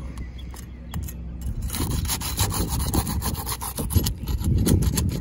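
Steel flat bar scraping and prying under asphalt architectural shingles to work loose a shingle that has been caulked down. The rapid scraping strokes grow busier from about two seconds in.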